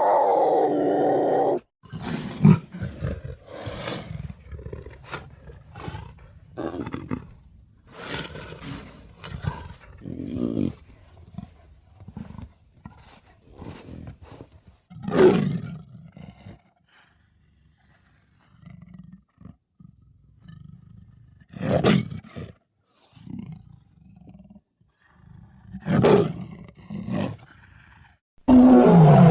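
Big cat roars and growls, a string of separate calls with short pauses between them; a long loud roar opens and another comes near the end, with lower growls and snarls in between.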